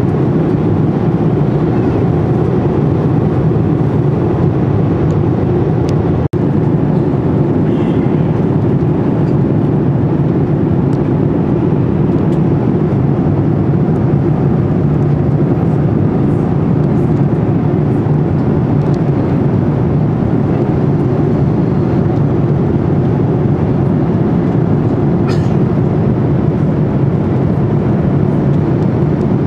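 Steady, loud rumble of a moving vehicle heard from inside, even throughout, with the sound cutting out for an instant about six seconds in.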